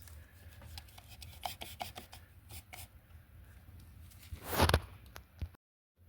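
Hand handling of car parts: scattered light clicks, taps and rubbing scrapes, with a louder scraping rush about four and a half seconds in. A low hum runs underneath, and the sound drops out completely for a moment near the end.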